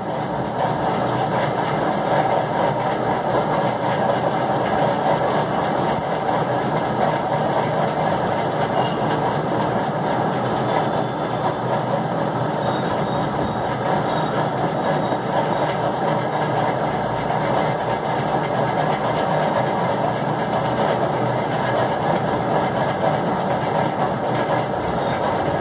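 A steady mechanical drone, like a motor or engine running, unchanging throughout.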